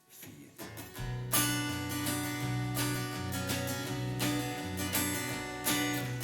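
Instrumental intro of a country song: acoustic guitar strumming chords over low bass notes, coming in about a second in after a faint start.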